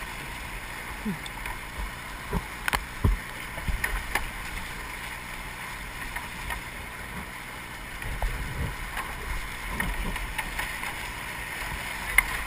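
Moving water splashing and gurgling around a kayak, with scattered sharp splashes or knocks and wind buffeting the microphone.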